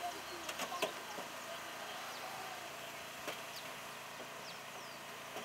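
Hydraulic rescue equipment's power unit running steadily while firefighters work a car door, with a few metal clicks and knocks in the first second and another about three seconds in. Faint bird chirps come through near the end.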